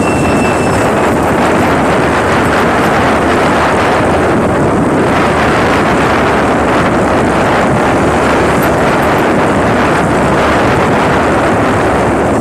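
Loud, steady wind rush buffeting the microphone of a moving motorcycle, with the bike's running noise underneath.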